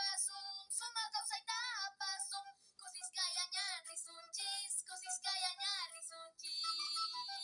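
A very high-pitched singing voice with strong vibrato carrying a melody in a recorded song, ending on a long held note near the end.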